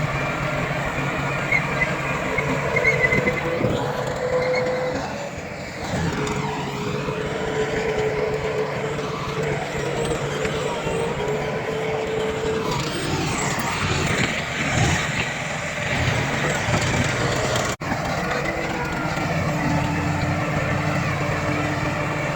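Heavy diesel earthmoving machinery, a bulldozer and dump trucks, running steadily with engine pitch rising and falling as they work. The sound drops out for an instant about eighteen seconds in.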